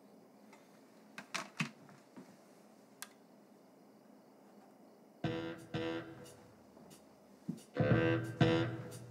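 A few faint clicks and taps, then instrumental music starts about five seconds in, coming through small desktop computer speakers in short loud stretches.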